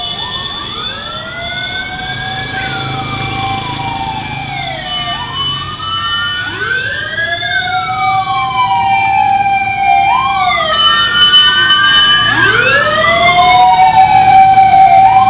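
Fire truck sirens wailing, several rising and falling sweeps overlapping one another, growing louder toward the end as the truck approaches and passes.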